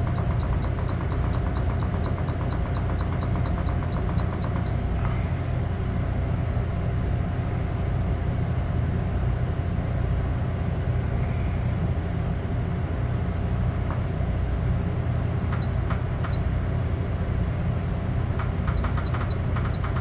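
An electronic refrigerator control panel beeping rapidly, several short high beeps a second, as a held button steps the display through parameter numbers. The beeps run for about the first five seconds, come twice near 16 seconds and resume near the end, over a steady low machinery hum.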